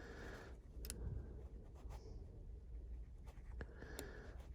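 Quiet scratching and scraping of a dimple pick working inside a bike lock's dimple keyway, with a few small sharp clicks.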